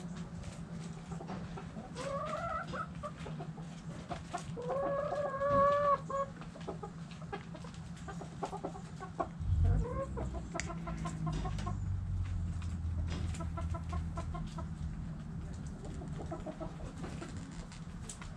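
Backyard chickens clucking in a coop: a couple of longer, drawn-out calls in the first six seconds, then runs of short repeated clucks. A steady low hum runs underneath, and there is a dull thump about nine and a half seconds in.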